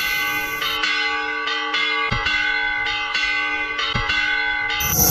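Church bell rung repeatedly, about two strokes a second, each stroke ringing on under the next.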